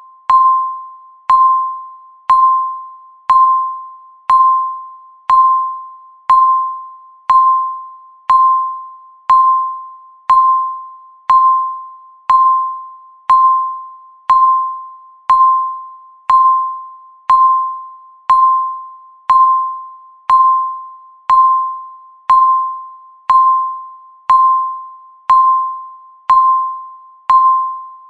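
Countdown timer's tick sound, once every second: each tick is a sharp click followed by a short pitched ring that fades before the next, marking each passing second.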